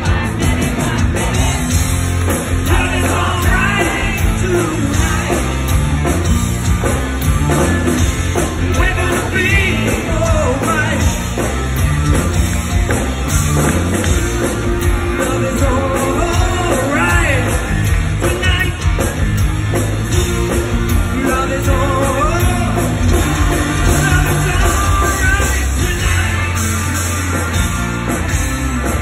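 Live rock band playing through a concert PA, with a lead vocal over electric guitars and drums, heard from within the audience.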